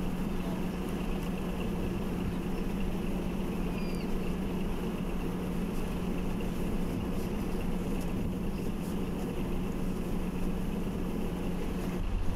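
Steady hum from the rocket test stand during the automatic pre-ignition sequence. Near the end the RS-25 liquid-hydrogen/liquid-oxygen rocket engine ignites and a deep rumble begins.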